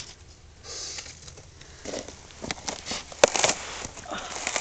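Scattered crunches and clicks of footsteps on shoreline rocks littered with dead zebra mussel shells, with one sharp click about three seconds in.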